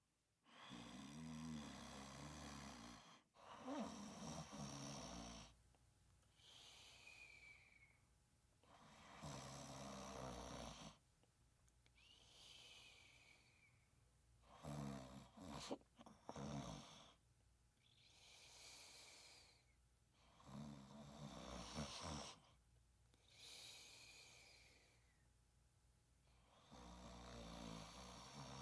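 Slow, steady snoring: a rattling snore comes about every five to six seconds, and between snores there is a short, faint, high whistling note on the other breath.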